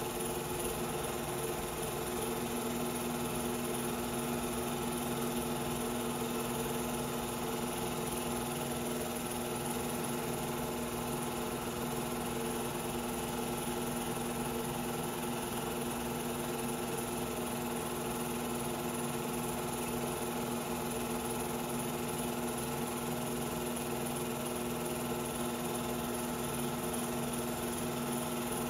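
Film projector running steadily: a constant mechanical whir and hum made of several steady tones, unchanging throughout.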